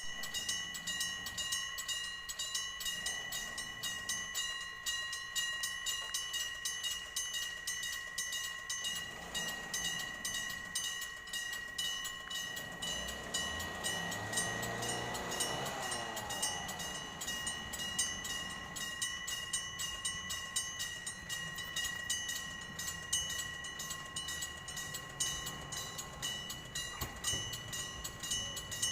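Electric bell of a Japanese railway level crossing ringing continuously with rapid, even strokes. A train passes through the crossing, its noise rising from about nine seconds in, peaking in the middle and dying away over the next few seconds while the bell keeps ringing.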